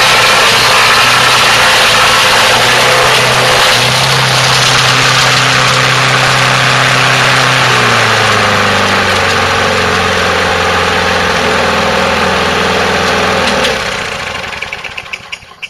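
Craftsman mulching push mower's gasoline engine running hard while it grinds up sticks. About eight seconds in its speed drops and it labours at a lower pitch, then near the end the engine cuts out and spins down to a stop.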